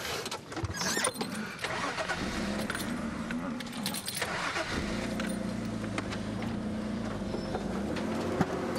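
Safari game-drive vehicle: rattling and knocking in the first half, then its engine running with a steady low hum from about halfway in, as the vehicle gets ready to move off.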